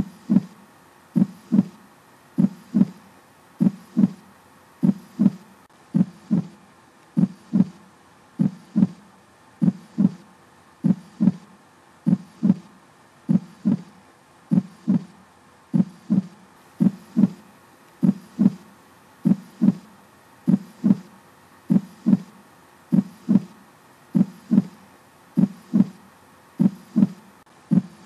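Heartbeat sound effect: an even lub-dub double thump repeating a little more than once a second, with no change in pace.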